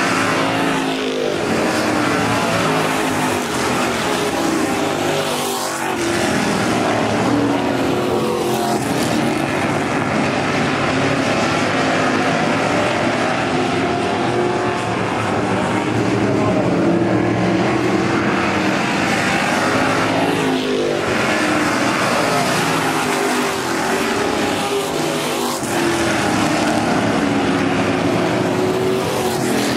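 A field of dirt-track V8 stock cars racing, their engines running hard in a steady din. Every few seconds a car passes close, its engine note sweeping in pitch as it goes by.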